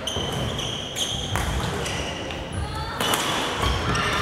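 Badminton rally in a gymnasium: sharp racket hits on the shuttlecock, two of them about a second and a half apart, with sneakers squeaking on the wooden court floor between them, over a murmur of voices in the hall.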